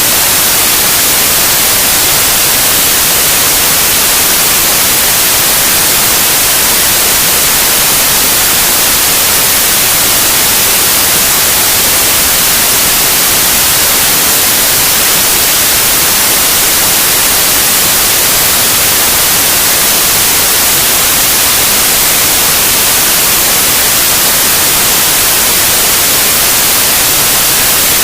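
Loud, steady white noise: an even hiss with its energy weighted toward the high end, unchanging throughout.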